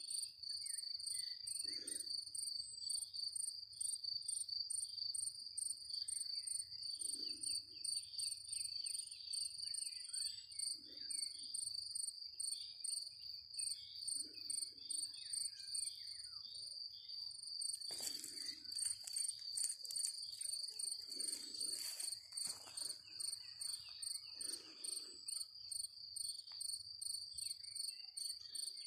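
Crickets chirping steadily in a high, fast pulsing trill, with a low note repeating every three or four seconds and faint scattered birdsong. About eighteen seconds in, a few seconds of crackling noise join in.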